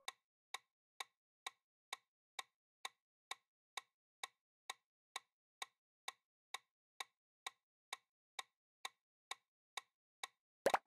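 Countdown timer sound effect ticking evenly, about two ticks a second, with a louder burst of clicks near the end as the count reaches zero.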